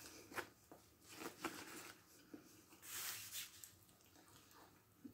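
Faint chewing of a bite of cheeseburger, with a few soft crunches and mouth clicks in the first two seconds and a brief rustle about three seconds in, likely the foil wrapper or a breath.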